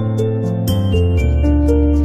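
Instrumental background music with sustained notes over a changing bass line and light percussion.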